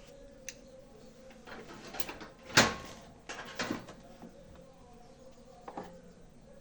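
Scattered clicks and knocks of small objects being handled, the loudest about two and a half seconds in, over a faint steady hum.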